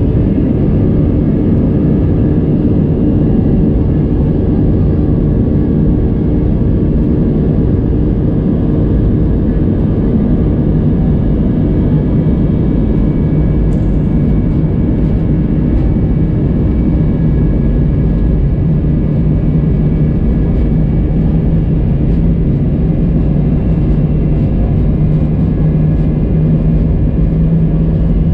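Airbus A320 jet engines running steadily at low thrust as the airliner taxis, heard inside the cabin over the wing: an even rumble with a steady hum and whine.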